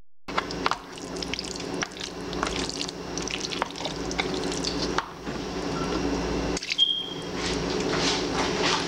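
A spoon stirring a thick mix of elbow macaroni, ground beef and tomato sauce in a pot: wet squelching and slopping with irregular clicks of the spoon against the pot, over a steady low hum.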